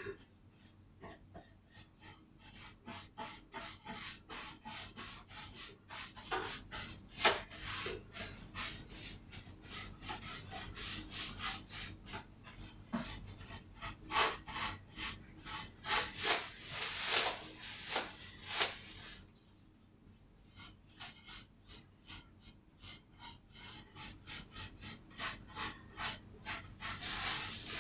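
Paintbrush strokes brushing paint onto a wooden nightstand: a quick run of scratchy back-and-forth strokes, two or three a second, with a short pause about two-thirds through.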